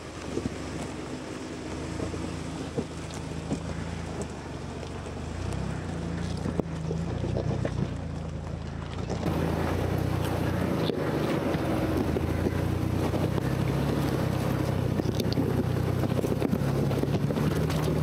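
Ford Bronco's engine running steadily at low revs as it crawls over rocks, with a few short knocks. It gets louder about nine seconds in.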